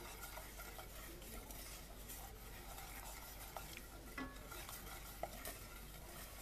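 Wooden spoon stirring hot brown butter and cinnamon sugar in a metal saucepan: faint scraping with small scattered clicks of the spoon against the pan.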